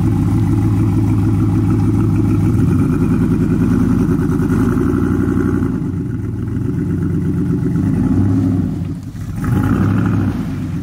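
Lifted Chevy Silverado's engine running under load as the truck crawls up a creek bank, with a short dip in revs near the end before it picks up again.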